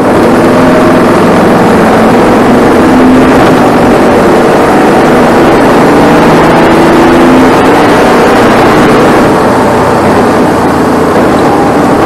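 Briggs & Stratton 570cc Vanguard engine of a Bandolero race car running hard at racing speed, heard loud and close from on board. It holds a steady drone, its pitch shifting a little as the car goes through the corners.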